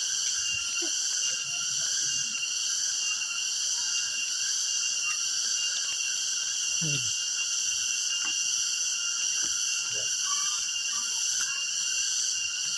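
A steady chorus of insects, a continuous high drone in several layered bands that does not change.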